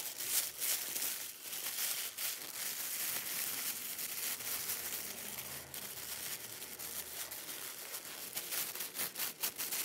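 Tissue paper crinkling and rustling as fingers pull apart and fluff its folded layers into a paper flower. Sharper crackles come faster near the end.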